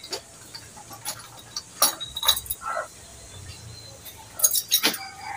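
Scattered metallic clinks and light knocks of tools and parts being handled on a diesel engine that is not running, with a quick run of them near the end.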